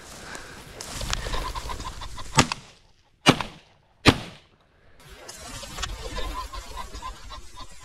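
Three shotgun shots from a 16-gauge Browning A5 Sweet Sixteen semi-automatic, a second or less apart, are the loudest sounds. Around them there is rustling through dry grass, and a flushing rooster pheasant cackles before the shots and again after them.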